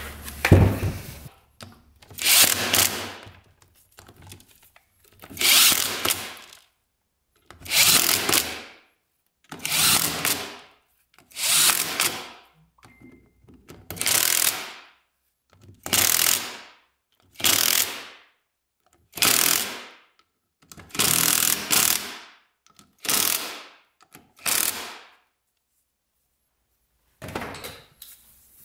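A handheld power driver runs the front differential case bolts in with short squeezes of the trigger. There are about a dozen runs of roughly a second each with short pauses between, and they stop a few seconds before the end.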